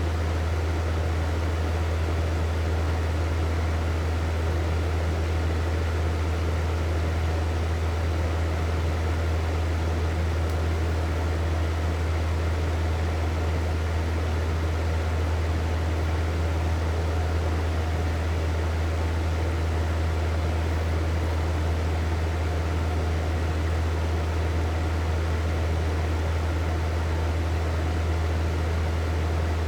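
Hair dryer running steadily: an even rush of blown air over a strong low motor hum, unchanging throughout.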